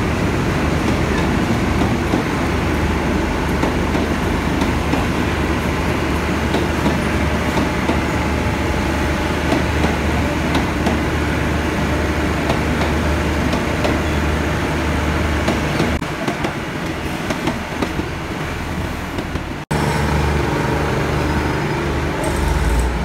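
Diesel passenger train at a station platform: a steady, loud low engine drone with rumbling noise over it. About twenty seconds in the sound breaks off for an instant and a similar drone takes over.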